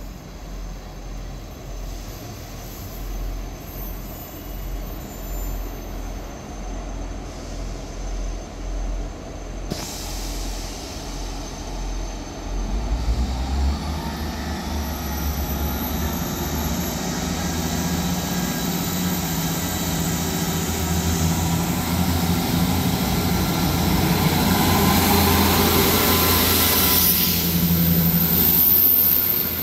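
Class 159 diesel multiple unit coming into the station, its underfloor diesel engines growing steadily louder as it draws alongside. The engine note strengthens about halfway through.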